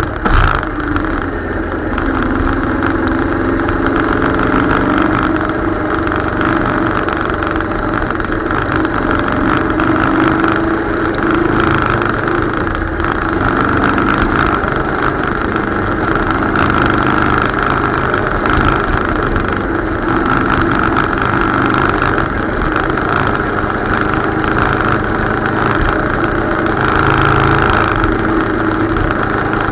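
Motorcycle engine running at a steady cruise, with wind rushing over the microphone. A brief knock about half a second in.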